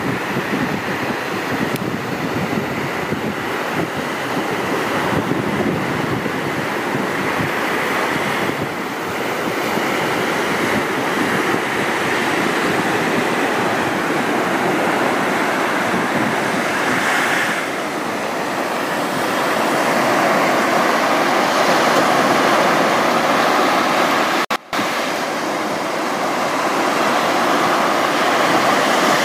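Sea surf breaking and washing up a sandy beach, a steady rushing hiss, with wind buffeting the microphone. The sound drops out for a split second near the end.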